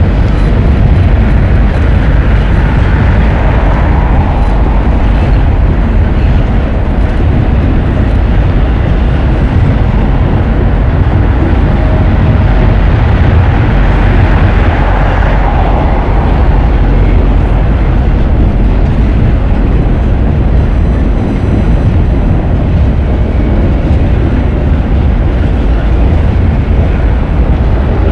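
BNSF double-stack intermodal freight cars rolling steadily past: a loud, continuous rumble of steel wheels on rail.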